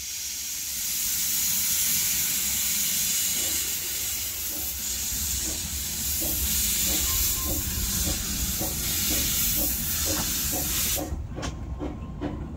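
Corris Railway No. 7, a Kerr Stuart 'Tattoo' class narrow-gauge steam tank locomotive, pulling away with a train: a loud, steady hiss of steam over a run of slow, even exhaust beats. The hiss cuts off suddenly near the end, leaving the beats and sharp clicks from the wheels on the track.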